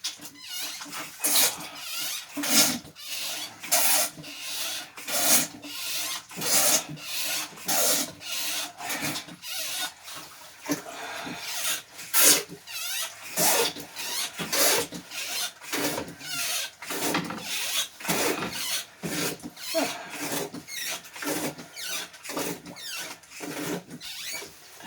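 Manual bilge hand pump being worked in quick repeated strokes, about two a second, each stroke a rasping, sucking rush as it draws water and air out of the bilge.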